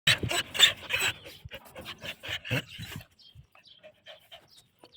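A wolfdog's rapid, noisy breathing through nose and mouth: a run of huffs about three a second for roughly three seconds, then only faint sounds.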